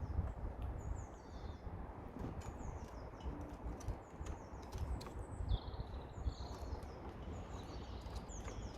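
A small songbird calling repeatedly with short, high chirps that slide down in pitch, about one a second, over a steady low rumble and scattered sharp taps and clicks.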